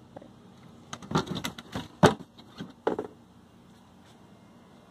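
Hard plastic resin shelf panels of a garden cart being handled and set into place: a few short knocks and clatters of plastic on plastic, then quiet for the last second or two.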